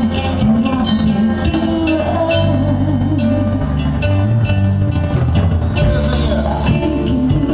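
A live band playing a song through a concert PA during a sound check, the drum kit keeping a steady beat under bass and guitar.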